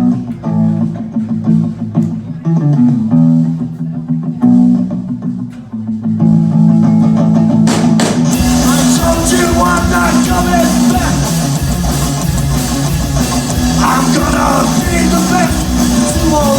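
Live rock song opening: a guitar riff plays alone, then drums and the full band come in about eight seconds in.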